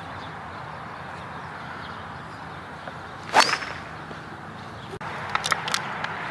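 Golf tee shot: a club swung in a fast rising swish that ends in a sharp crack on the ball with a brief high ring, about three seconds in. A few light clicks follow near the end.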